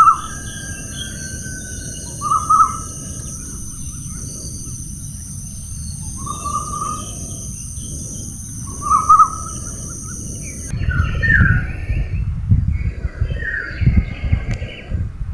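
Forest birds calling: a short call repeats every two to three seconds over a steady high hiss. About ten seconds in, the hiss cuts off suddenly and gusty wind rumble rises, with a different short rising call repeating every couple of seconds.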